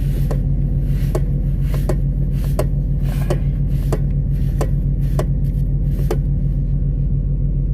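Steady low rumble of an idling semi truck's diesel engine, with irregular light clicks and scrapes on top as the grill is handled.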